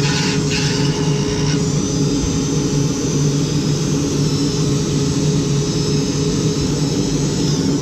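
Dremel rotary tool running steadily at high speed, cutting into the plastic helmet shell.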